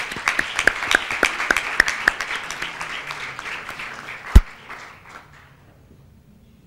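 Audience applauding, the clapping dying away about five seconds in. A single loud thump sounds about four seconds in.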